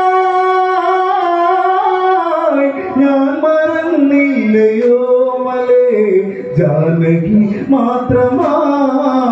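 Man singing a Malayalam Onamkali song in long, drawn-out held notes. The melody drops lower about two-thirds of the way through.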